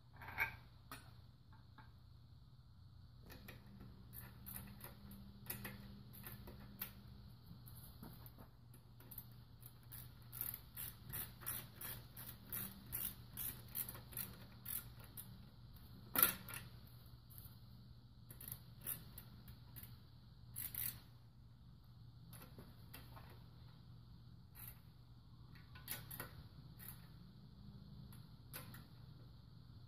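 Socket ratchet clicking in short runs as the bolts holding a Toyota 1ZZ engine's oil pickup tube are run down, with light clinks of the tool against the block. One sharper metal clank about sixteen seconds in, and a low steady hum underneath.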